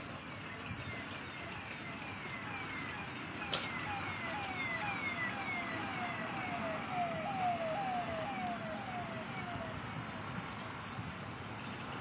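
A siren, distant and not loud, repeating a quick falling sweep about two to three times a second. It swells up and then fades away. A single sharp click comes about three and a half seconds in.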